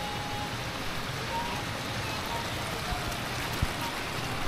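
Steady splashing of swimming-pool bubbler fountain jets, an even watery hiss, with a brief low thump about three and a half seconds in.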